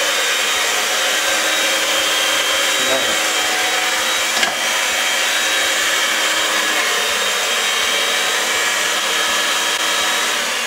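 Electric hand mixer running steadily, its beaters whisking pancake batter in a bowl: a constant motor whine.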